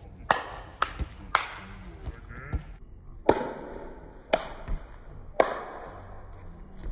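A basketball bouncing on an outdoor asphalt court: three quick bounces in the first second and a half, then heavier bounces about a second apart.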